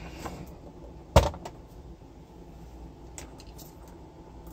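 A turntable's body being set down upside down on a workbench: one loud thump about a second in, then a few faint clicks of handling.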